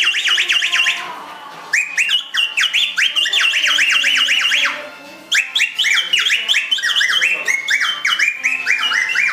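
A small whistle blown in rapid, repeated up-and-down warbling trills, in three runs with brief breaks about a second in and near five seconds.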